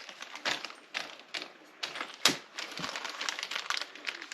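Small metal bolts and washers clicking and clinking as they are handled against the stand's metal TV plate: a string of irregular light clicks, the sharpest a little past halfway.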